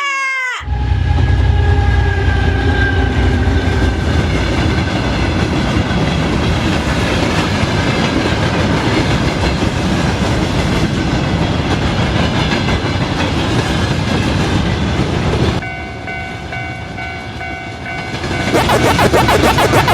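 Train sound effect: a loud, heavy rumble of a train running past for about fifteen seconds, with held tones in the first few seconds. The rumble gives way to a steady multi-tone sound, then rapid, evenly spaced clicking near the end.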